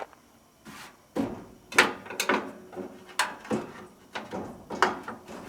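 A series of short scraping and knocking handling sounds, about eight strokes spread over a few seconds, as objects are moved and set down.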